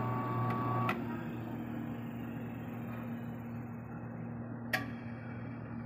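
Electric motor of a bone saw machine running with a steady hum, driving its pulley with no blade fitted, after a repaired push button that had a stuck contact. A sharp click about a second in, after which the higher whine stops while the low hum goes on, and another sharp click a little before the end.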